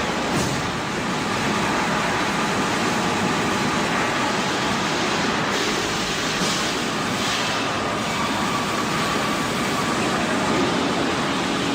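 Sawmill wood-cutting machinery running: a steady, dense mechanical noise with no breaks.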